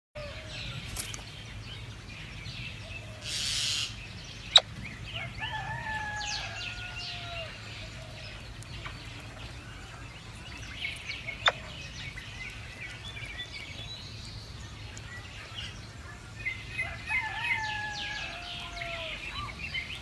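A rooster crows twice, once about five seconds in and again near the end, each crow about two seconds long, rising and then falling in steps. High bird twittering runs around the crows, with two sharp clicks and a brief rush of noise early on.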